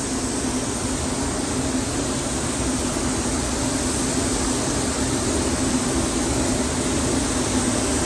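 Gravity-feed paint spray gun hissing steadily as compressed air atomizes primer, with a steady low hum underneath.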